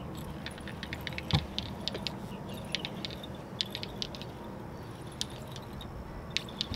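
Fishing reel being worked on a bass boat's front deck: a run of light, irregular clicks and ticks, with one louder knock about a second and a half in, over steady low background noise.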